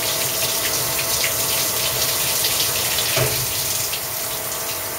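Rinse water rushing and splashing as it overflows in a semiconductor wet bench's quick-dump-rinse (QDR) tank, a steady wash of water noise with many small splashes. A brief dull knock about three seconds in.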